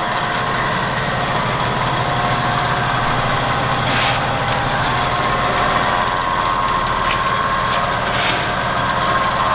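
Vectrax 7 x 12 horizontal metal-cutting band saw running steadily under its electric motor, a steady machine hum whose low part comes in within the first second as it starts up.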